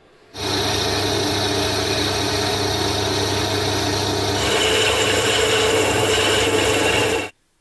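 Drill press running as a twist drill cuts into a solid brass disc, a steady grinding of metal being cut. About four and a half seconds in the sound changes and takes on a high steady whine as a wider cutter bores the hole out, then it cuts off suddenly near the end.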